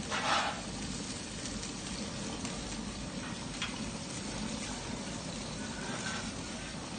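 Liquid boiling in a wok on a commercial gas wok stove, over a steady hiss, with a brief louder hiss just after the start.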